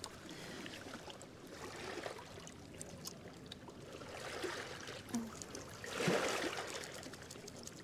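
Small waves of the Hudson River lapping on a stony shore: a low, steady wash that swells about six seconds in.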